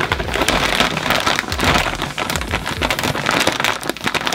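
Snack bag being handled, its plastic packaging crinkling and rustling in a dense, steady crackle.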